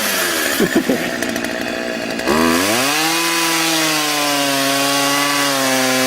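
Two-stroke chainsaw cutting into a tree trunk. About two seconds in it revs up sharply and holds a steady high-pitched run at full throttle.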